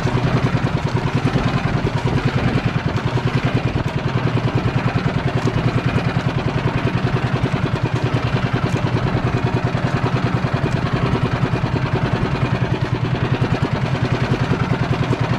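A small engine running steadily at idle, with a fast, even chugging pulse.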